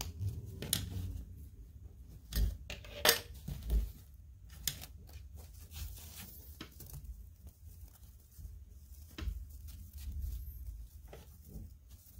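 Small plastic toy accessories clicking and tapping as they are handled and unfolded, with a few sharper clicks about two to three seconds in.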